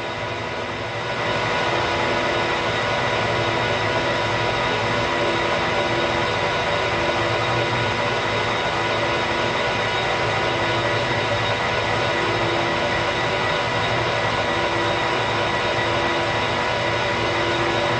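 Geared-head metal lathe running steadily with a constant gear whine, taking a light cleanup cut on an aluminium workpiece. The level steps up slightly about a second and a half in.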